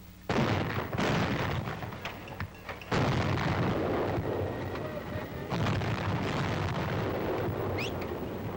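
A battery of 90mm anti-aircraft guns firing: four heavy shots, the first two close together right at the start, then two more about three and five and a half seconds in. Each shot has a long echoing tail that runs into the next.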